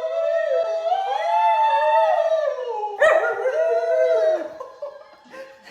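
A husky howling in long drawn-out notes that rise and fall in pitch, with a fresh howl starting sharply about three seconds in and dying away near the end.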